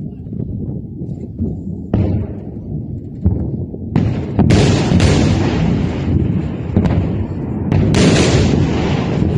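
A series of missile explosions over a continuous low rumble: single blasts about two and three seconds in, then heavier, closer-spaced blasts from about four seconds on, with a last pair near the end.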